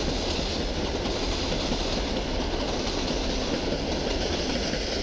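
Koleje Mazowieckie EN57AL electric multiple unit running past on the station tracks: a steady, continuous noise of steel wheels on rail.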